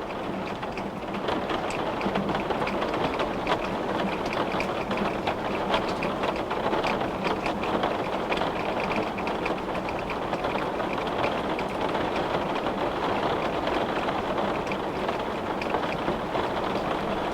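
Heavy rain falling on glass: a steady, dense hiss with many small, sharp drop ticks scattered through it.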